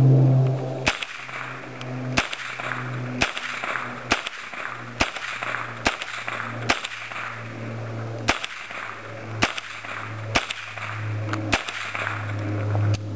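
An AR-15 with a dedicated .22LR upper receiver firing slow, steady single shots: about a dozen sharp cracks, roughly one a second, over a steady low hum.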